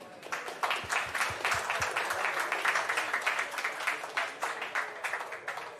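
Audience applauding: many hands clapping densely, dying away near the end.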